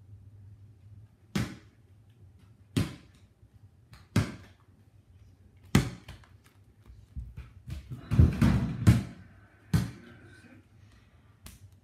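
A ball bouncing on a hard floor, single bounces about every second and a half. A quick, louder flurry of bounces and knocks comes around eight to nine seconds in.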